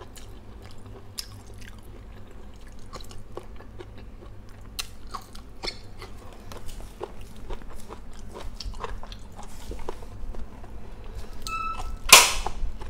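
A person chewing a hand-fed mouthful of rice and fried food, with many small wet mouth clicks and smacks. Near the end there is a short, loud burst of noise.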